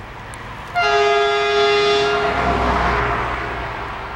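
MÁV M62 diesel locomotive's horn sounding one steady blast of about a second and a half, starting about a second in, warning for the level crossing. A low rumble carries on underneath as the blast dies away.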